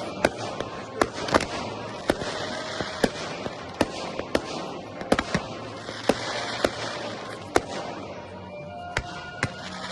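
Aerial fireworks shells bursting: more than a dozen sharp bangs, irregularly spaced, over a continuous crackle.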